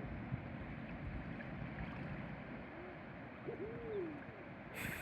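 Sea water washing steadily along the shore, with a few short calls that rise and then fall in pitch, the clearest one a little past the middle.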